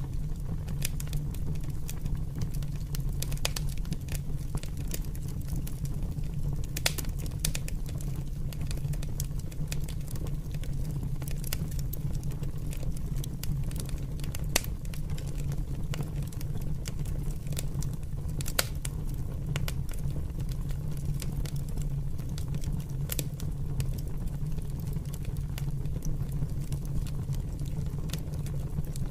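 Open fire crackling, with irregular sharp pops, a few louder ones about 7, 15 and 19 seconds in, over a steady low rumble.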